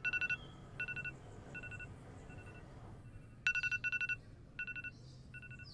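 Electronic beeping: short trilling beeps at two pitches, an octave apart, repeating in groups that fade away and then start again loud about three and a half seconds in, like a ringtone, over a low steady hum.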